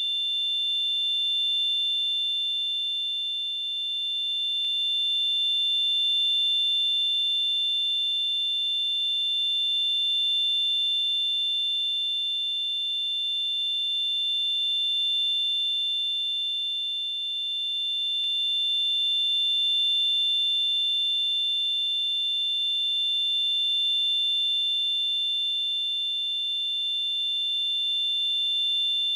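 Simulated tinnitus ringing: two steady high-pitched tones sounding together over a faint hiss, gently swelling and easing in loudness every few seconds.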